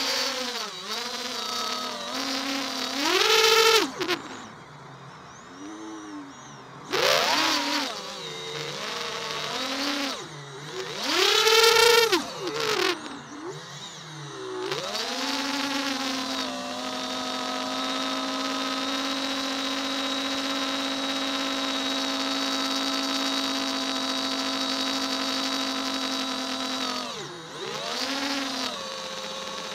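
FPV quadcopter's electric motors and propellers whining, the pitch rising and falling with the throttle. There are sharp climbs in pitch about 3 and 11 seconds in, and softer lulls in between. From about halfway through, the whine holds a steady pitch in cruise, then dips briefly near the end.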